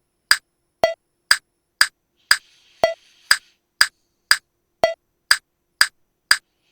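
Software metronome in Vegas Pro clicking steadily at about two beats a second. Every fourth click is a different, lower accent sound marking the first beat of each 4/4 bar, from custom click samples loaded in place of the defaults.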